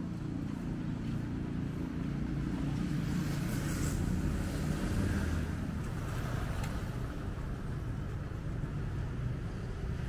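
Street traffic: a motor vehicle's engine gives a steady low rumble, swelling briefly about four to six seconds in as a vehicle passes.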